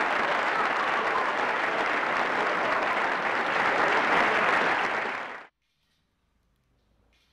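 A crowd applauding, a dense steady clapping that dies away quickly about five seconds in.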